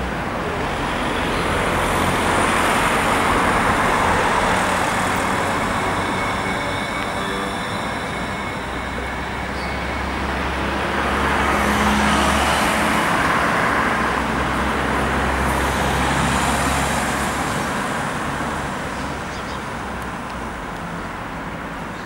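Road traffic passing, with cars swelling and fading several times, over a steady low drone that fits the military helicopter circling overhead.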